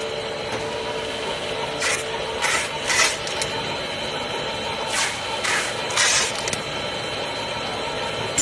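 LLDPE stretch film extrusion machine running: a steady mechanical hum with short bursts of hiss, three close together about two seconds in and three more about five seconds in.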